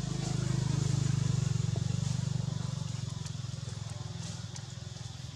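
A motor vehicle's engine running past, a low pulsing hum that grows to its loudest about a second and a half in and then fades.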